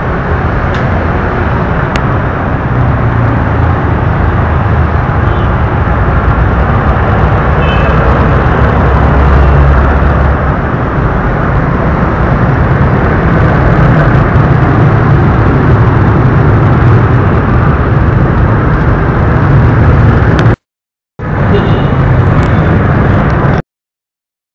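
Steady, loud road-traffic noise with a deep engine rumble from passing vehicles. It drops out for a moment and then stops shortly before the end.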